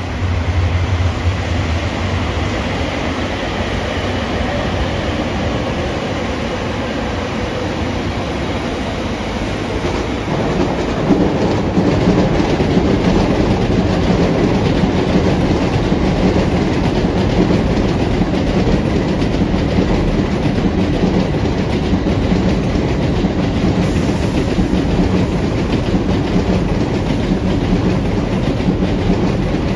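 A train running past on the line, a long steady rumble and clatter that grows louder about ten seconds in and holds.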